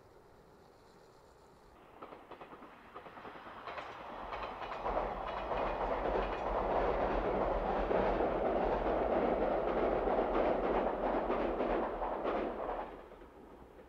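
Train crossing a steel girder railway bridge: the rumble of the cars with a steady clatter of wheels over the rail joints. It builds over a few seconds, stays loud for about seven seconds, then drops away quickly near the end.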